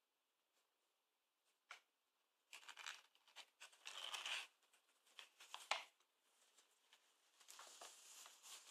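Brown paper bag crackling and rustling in irregular bursts as a cat shifts about inside it, after a couple of seconds of near quiet with one small click.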